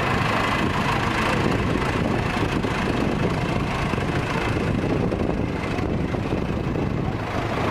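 Engine of a slow-moving parade float vehicle running steadily at low revs.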